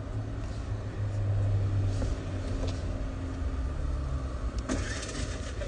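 Car engine idling, heard from inside the cabin as a steady low hum, with a short rush of noise near the end.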